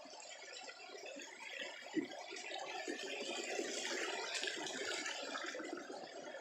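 Shallow river water splashing and trickling, with a single sharp knock about two seconds in.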